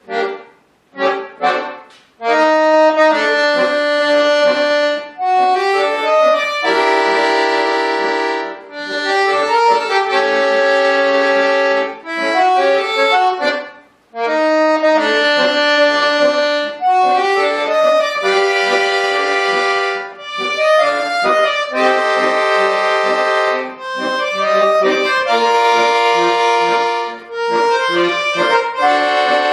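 Bayan (Russian button accordion) playing a piece: a few short detached chords at the start, then long sustained chords in phrases, with brief breaks about halfway through and again about two-thirds of the way in.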